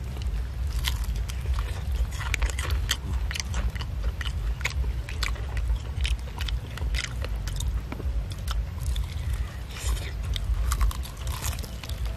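Crunching bites and chewing of crispy deep-fried chicken with a crunchy coating: irregular crackling crunches throughout, over a steady low rumble.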